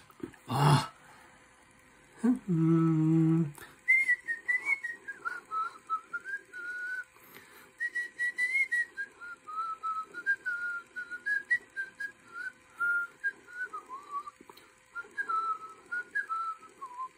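A person whistling a tune, one wavering melodic line that starts about four seconds in and goes on to the end. Before it, around two seconds in, there is a short, steady, low hummed voice sound.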